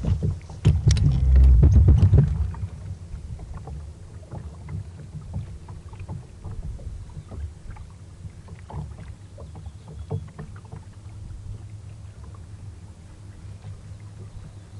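Boat noise on the water from a bass boat: a steady low rumble with scattered light knocks and clicks, and a loud rumbling burst about a second in.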